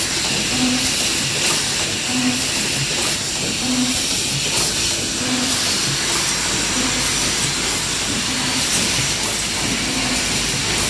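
Automatic corner-spout pouch sealing machine running: a steady hiss with faint ticks from its pneumatic actuators and spout feeder. In the first half, a short low hum repeats about every second and a half.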